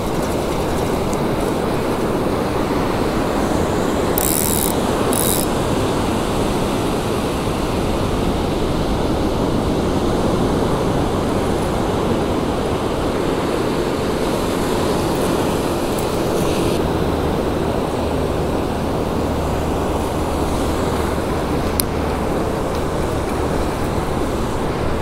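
Ocean surf breaking and washing up the beach close by: a continuous, even rush.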